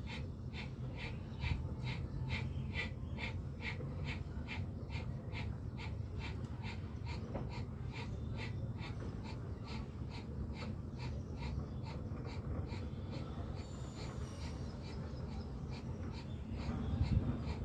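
Bhastrika pranayama (bellows breath): a person forcing the breath in and out through the nose in a fast, even rhythm, about two to three short rushes of air a second.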